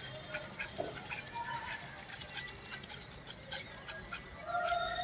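Kite string (manja) being pulled off a hand-held kite reel, the spool turning on its rod with a rapid, uneven run of light clicks and rubbing.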